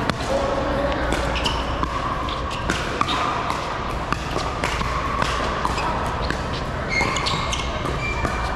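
Pickleball rally: a hard plastic ball popped back and forth off composite paddles in repeated sharp pops, echoing in a large indoor hall.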